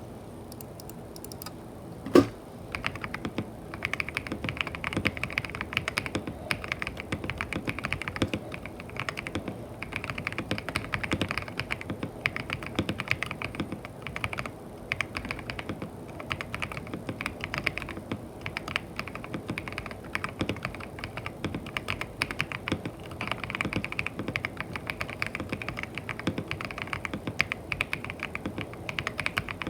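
Typing on a freshly built Tiger 80 Lite mechanical keyboard as a sound test: a single loud keystroke about two seconds in, then steady, quick, irregular key clacks.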